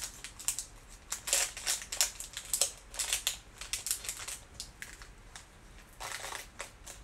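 Small clear plastic bag crinkling and rustling in many quick crackles as it is handled and opened, with a fresh burst about six seconds in as the drills are tipped out of it.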